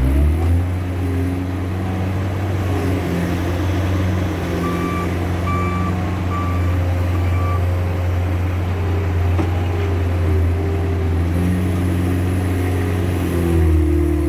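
Case skid steer loader's diesel engine running steadily under work, its note shifting near the start and again near the end. About a third of the way in, the backup alarm beeps five or so times at an even pace as the loader reverses.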